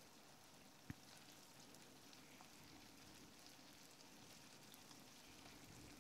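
Faint sizzling and crackling of lamb liver in thick sauce in a frying pan as a wooden spatula stirs it, with one light knock about a second in.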